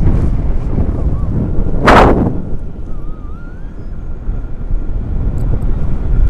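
Wind buffeting the microphone in flight: a steady low rumble, with one sudden loud blast about two seconds in. A faint wavering high whistle shows briefly around three seconds.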